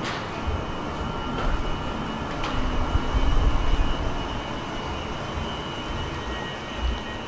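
Steady low rumble and hiss of railway station ambience on an open platform, swelling slightly in the middle, under a faint steady high whine, with a sharp tick at the start and another about two and a half seconds in.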